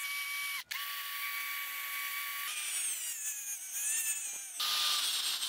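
Dremel rotary tool fitted with a wire brush, whining at a high steady pitch, brushing weld spatter balls off fresh MIG welds. It cuts out for an instant under a second in, and from about halfway the pitch sags and wavers as the brush is pressed against the metal.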